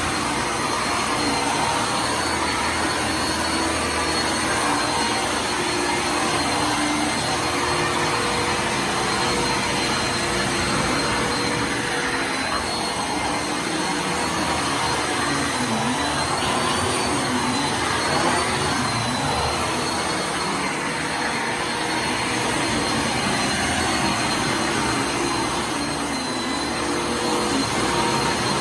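Bissell Lift-Off Multi Cyclonic Pet upright vacuum cleaner running steadily. Its motor gives a high whine that wavers a little around the middle, and the lower hum shifts about.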